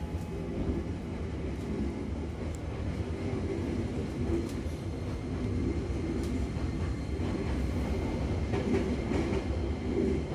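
Hankyu Kyoto Line electric train heard from inside the car, running and getting under way after the doors have closed: a steady rumble of wheels and motors that grows slowly louder.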